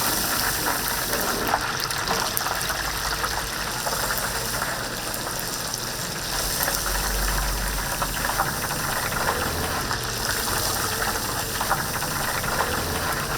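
Steady hiss of a fried-chicken shop kitchen, like chicken deep-frying in oil, with occasional small clicks and clatter.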